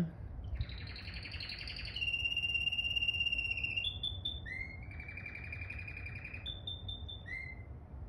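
Male canary singing a phrase of rolling trills and held whistled notes: a fast trill about half a second in, a long steady whistle, a few short notes, another trill, and a short whistle near the end.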